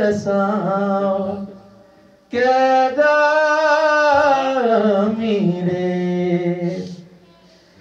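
A man singing a devotional qaseeda into a microphone without accompaniment, in two long phrases with held notes. The first phrase ends about a second and a half in. The second begins just after two seconds and runs almost to the end, falling in pitch partway through.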